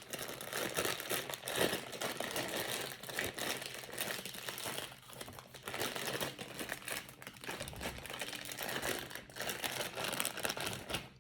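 Crinkling and rustling of plastic packaging being handled, a continuous run of small crackles.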